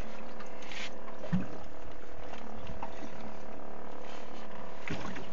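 Small boat's engine running with a steady drone, with a couple of brief low knocks.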